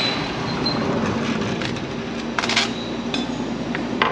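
Busy restaurant ambience: a steady rumbling din with a few sharp clinks of dishes and utensils, the loudest about two and a half seconds in.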